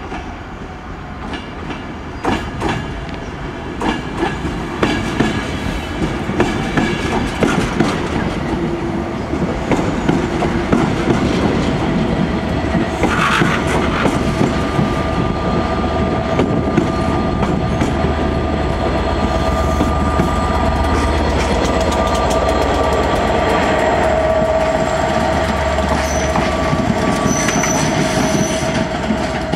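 Loco-hauled passenger train of Mk3 coaches rolling past, the wheels clicking over rail joints, growing louder as the Class 67 diesel locomotive pushing at the rear comes by with its EMD two-stroke V12 engine working. Steady wheel squeal sets in about halfway through as the train takes the curves and pointwork.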